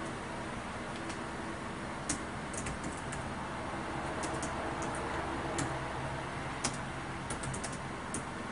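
Typing on a computer keyboard: irregular, sparse key clicks, a few in quick runs, over a steady background hiss.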